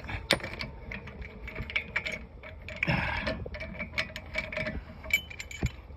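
Irregular light clicks and taps of metal brake parts and tools being handled, as a brake caliper is freed and new ceramic pads are fitted, with a brief scrape about three seconds in.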